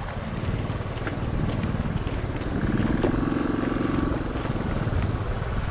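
Royal Enfield Classic 500 single-cylinder motorcycles riding through a shallow stream crossing, engine thumping steadily. From about halfway in, the nearer bike's engine note rises and then falls as it pulls through the water.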